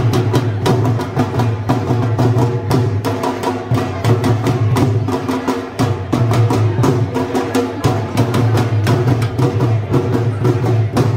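Dhol drum played with sticks in a fast, driving rhythm of sharp strokes, several a second, without a break.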